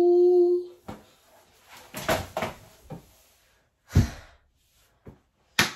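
A held sung note ends about half a second in. Scattered knocks and handling thumps follow, with a loud thump about four seconds in and a sharp click near the end, as a hand grabs the recording phone.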